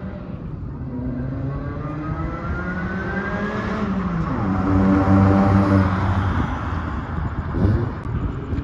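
Car engine accelerating: its pitch climbs for about three seconds, holds at its loudest for a moment, then drops away near the end.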